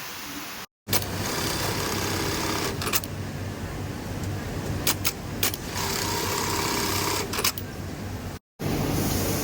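Industrial sewing machine running in two bursts over a steady machine hum, with a few sharp clicks. The sound drops out completely for a moment near the start and again near the end.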